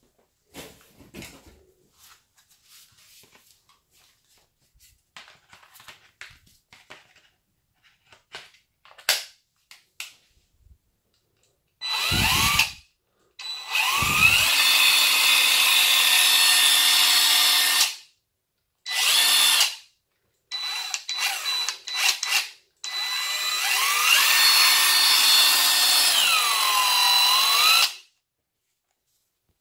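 Parkside PASSK 20-Li cordless impact wrench running free with no load, trigger pulled several times. There is a burst of about a second, then runs of about four and five seconds with a motor whine that rises as it spins up and falls as it slows at the end, with a string of short blips in between. Light clicks and knocks come in the first dozen seconds, before the motor starts.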